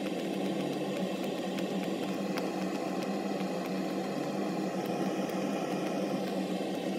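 A steady mechanical hum with a fixed low tone, like a small electric motor running.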